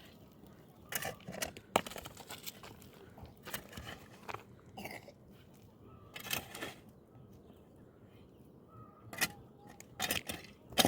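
Irregular short crunches and knocks, a few at a time with gaps between, the sharpest cluster near the end.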